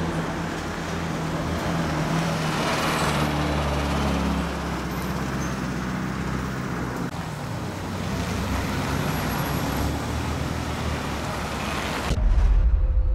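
City street traffic: passing cars' engines and tyre noise as a steady wash, with a vehicle engine's low hum standing out in the first few seconds. It cuts off abruptly about a second before the end.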